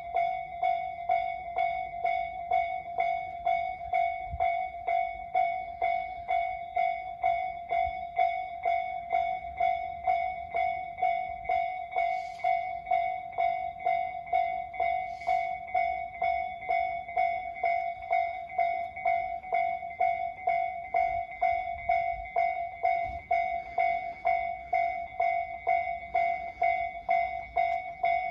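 Japanese railway level-crossing warning bell, newly replaced, ringing steadily at about one and a half strikes a second. Each strike is a clear ringing tone with higher overtones. It is the alarm that sounds while a train approaches and the crossing is closed.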